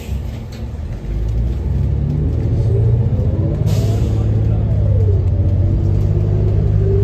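Cabin sound of a 2016 New Flyer Xcelsior XN40 natural-gas bus pulling away and accelerating: a deep engine rumble building about a second in, with whines that rise as it gathers speed, dip once midway and climb again near the end, and a short hiss of air partway through. The engine note is one the rider calls very strange.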